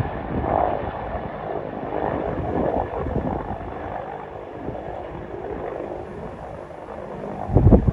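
Helicopter flying away, its rotor noise fading gradually, mixed with wind buffeting the microphone and a loud gust near the end.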